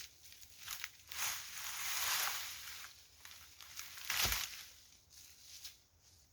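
Dry leaves and twigs rustling and crackling underfoot and in the hands. There is a longer scraping rustle from about one to three seconds in, and a single thud with a snap about four seconds in, such as a piece of wood dropped or broken.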